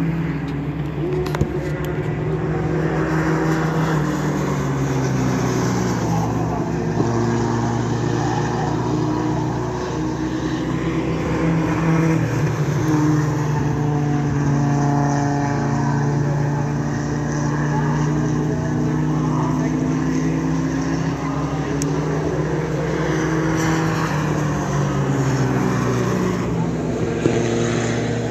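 Engines of several racing pickup trucks running at speed, their pitch rising and falling as they pass and change speed around the track.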